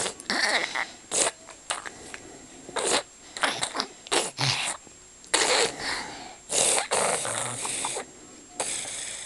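A young child snoring and breathing noisily through a nose and throat congested by a cold. The breaths are irregular and rough, some short and close together, others drawn out over a second or more.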